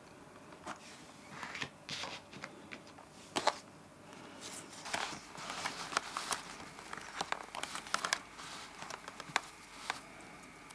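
Photo prints being handled and leafed through by hand: stiff paper rustling and slipping against paper in short, irregular clicks and crinkles.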